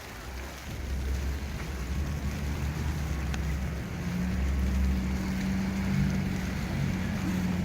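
Blizzard wind rumbling on the microphone, with a steady low hum that grows louder about four seconds in.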